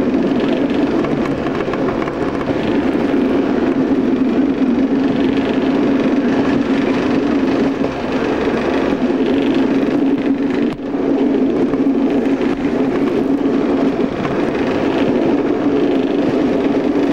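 Class 115 diesel multiple unit running along the line, heard from on board: a steady diesel engine drone with wheel and rail noise. A brief drop in level comes about two-thirds of the way through.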